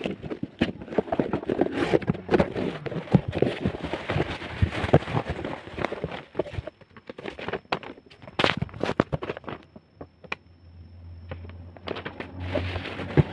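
Crinkling and crackling of a parcel's plastic packaging as it is handled and opened, with many irregular clicks and taps; it eases off for a moment about ten seconds in, then picks up again.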